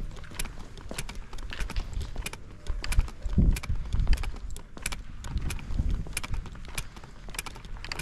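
Footsteps of a person walking at a steady pace on a concrete driveway, about two sharp steps a second, with a low rumble on the microphone.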